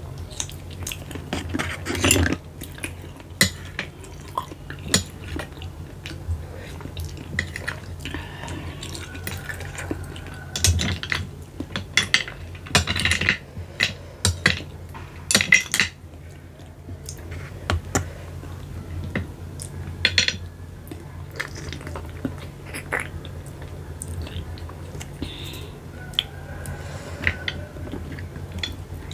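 Mukbang eating sounds: spotted babylon snail shells (keong macan) clicking against a glass bowl and a metal spoon scraping the dish, in scattered sharp clinks that bunch up about two seconds in and again in the middle, with wet sucking and chewing between them over a steady low hum.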